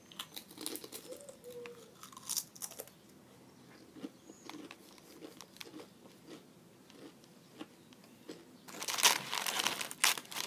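Crisps being crunched and chewed in small clicks through the first few seconds, then a foil crisp packet crinkling loudly for about a second and a half near the end.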